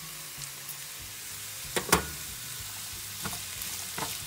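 Diced potatoes and green beans sizzling in hot oil in a frying pan, a steady hiss. Two sharp knocks come about two seconds in, and then a spatula clicks and scrapes against the pan as the mixture is stirred.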